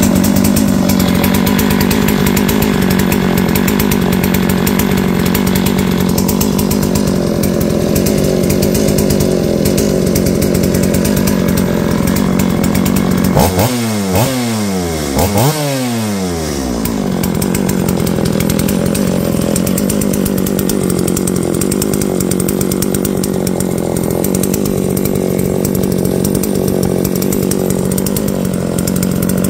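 Brand-new Neo-Tec NS872i, a 72cc two-stroke chainsaw, idling steadily on its first run. About halfway through it is revved twice, about two seconds apart, each blip falling straight back to idle.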